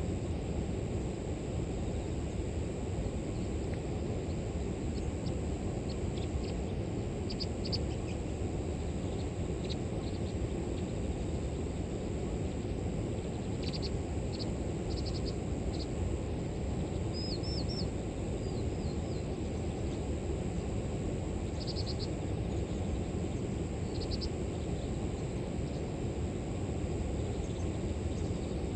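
River water flowing steadily, with a constant high trill of grass insects. Short high bird chirps come in small clusters several times.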